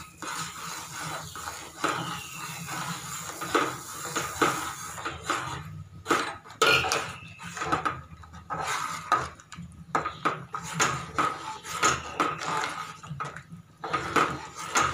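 Metal ladle knocking and scraping against the sides of a metal pot in quick, irregular strokes, stirring wheat rava into hot water for upma to keep lumps from forming.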